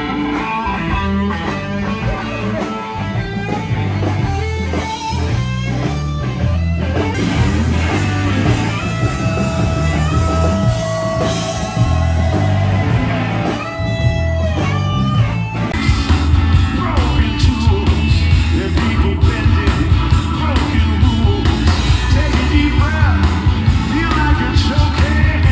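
Live blues-rock band playing loud through a stage sound system: electric guitar and a singer over bass and drums with a steady beat. About two-thirds of the way through, the band gets fuller and louder.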